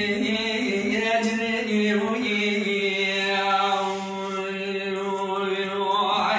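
A man singing unaccompanied in the Kurdish dengbêj style, with no instruments. The notes wander and bend for the first couple of seconds. Then he holds one long note for about four seconds, which breaks off at the end.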